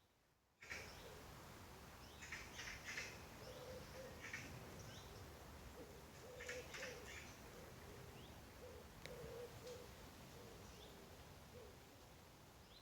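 Faint woodland birdsong: low cooing notes repeating every few seconds, with short high chirps and calls from small birds. The sound comes in suddenly about half a second in.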